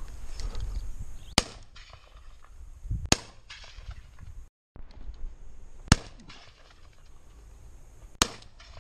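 Four shotgun shots: two about a second and a half apart, then, after a short break in the sound, two more about two seconds apart.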